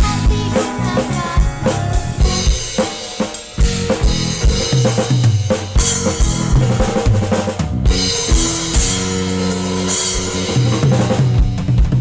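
Upbeat band accompaniment of a children's worship song: a drum kit, with bass drum and snare hits, plays over a bass line.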